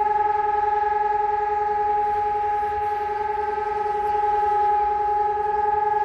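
SiRcom ESp 750 Maestro electronic siren and a DS 977 siren sounding the test signal together: one steady siren tone held at a single pitch, the level swelling gently.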